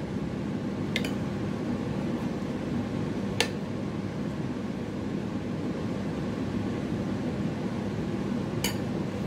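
Steady low room hum with three brief sharp clicks: about a second in, a few seconds later, and near the end.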